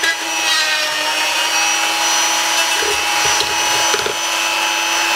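Small handheld rotary tool with a thin burr bit running at high speed, a steady whine with grinding as it cuts and melts through the plastic supports of a 3D print. A few low knocks of the burr catching come in the middle, and a lump of melted plastic is building up on the burr.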